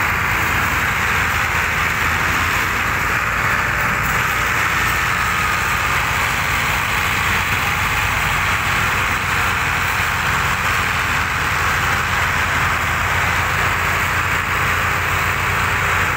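Diesel engines of several farm tractors, Ford among them, running steadily under heavy load as they pull a huge loaded trailer together in tandem.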